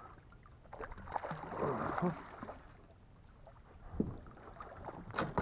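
Striped bass thrashing and splashing at the water's surface beside the boat. A few sharp knocks come near the end.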